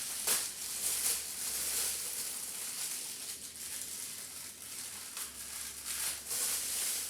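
Plastic packaging rustling and crinkling as items are handled and unwrapped, with a few louder crinkles.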